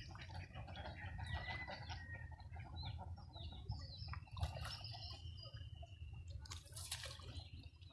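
Domestic chickens clucking faintly, with one long drawn-out call about four seconds in, over a steady low rumble. A brief sharp sound comes near the end.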